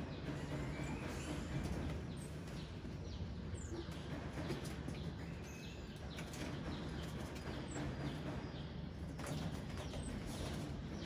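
Short, high-pitched chirps and squeaks from common marmosets, heard a few times over a steady low hum.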